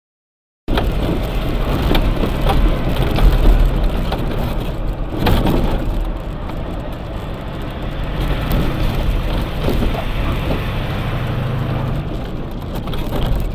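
Vehicle engine and road noise picked up by a dashcam while driving in traffic: a steady low rumble that starts abruptly after a moment of silence, with a brief louder knock about five seconds in.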